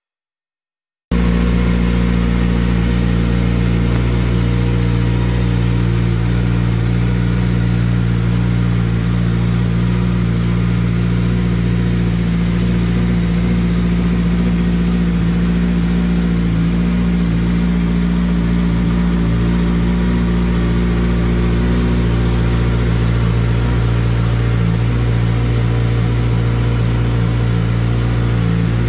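2007 Kawasaki ZX6R's inline-four engine idling steadily through an Akrapovic aftermarket exhaust, coming in abruptly about a second in.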